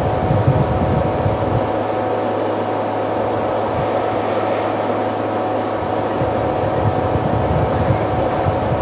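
Elephants churning and splashing the water as they wallow, heard as a steady rushing noise under a constant electrical hum from the webcam's sound feed.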